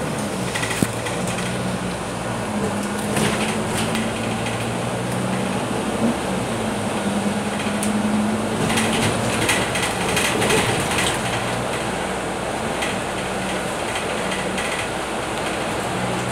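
Cabin sound of a Scania K310UB city bus with a Volgren Optimus body driving at road speed: the rear diesel engine's steady hum under tyre and road noise. Interior panels and fittings rattle in short clusters, once about three seconds in and again past the middle.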